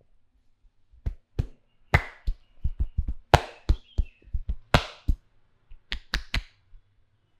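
A barber's hands slapping and chopping on the head in a percussive Indian head massage: a quick, uneven run of about seventeen sharp smacks with a dull thud under them, starting about a second in.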